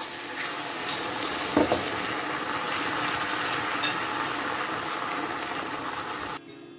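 Steady hiss from a pan of sugar and water heating on a lit gas stove, the sugar dissolving into syrup. It cuts off suddenly shortly before the end.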